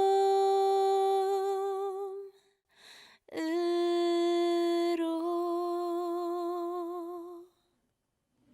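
A solo female voice singing unaccompanied, holding two long sustained notes with vibrato, a short breath between them, the second ending near the end.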